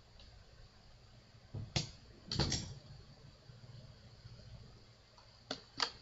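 Wood and hand tools being handled at a workbench: a sharp knock just under two seconds in, a short scrape a moment later, and two quick knocks near the end.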